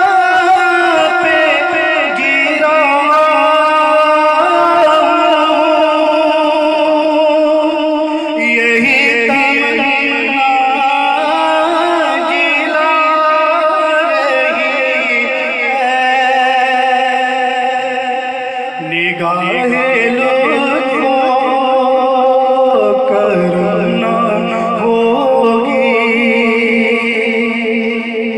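Man singing a naat into a microphone with no clear words, drawing out long, wavering melismatic notes.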